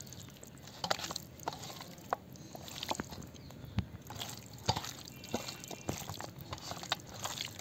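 A hand squeezing and turning raw chicken pieces in a wet spice marinade in a stainless steel bowl: irregular squelches and light clicks of meat against the steel.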